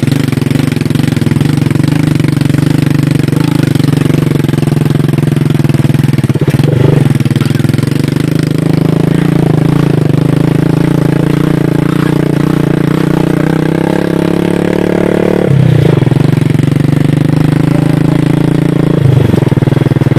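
Small motorcycle engine running under way, heard from the seat, steady and loud, its note dipping briefly and picking up again three times.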